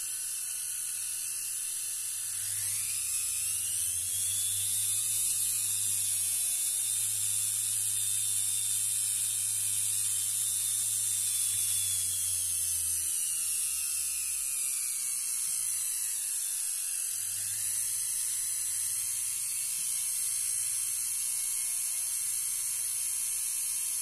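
Washing-machine universal motor spinning on a speed controller. Its whine climbs as the knob is turned up about two seconds in, holds steady, drops off after the middle, then settles at a lower speed. A steady low hum runs underneath.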